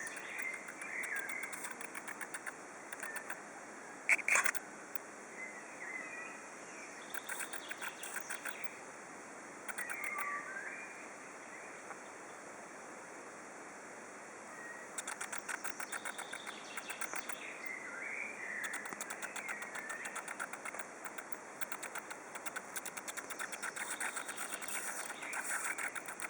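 A spider making repeated short trains of rapid clicks, a defensive noise that grows louder the more it is disturbed; the trains come thicker in the second half, and there is one sharper click about four seconds in. Birds chirp in the background.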